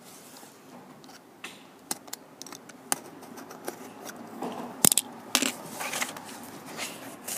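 Utility knife slitting the packing tape along the seam of a cardboard box: scattered scratching and ticking, with two louder sharp clicks past the middle as the box is handled.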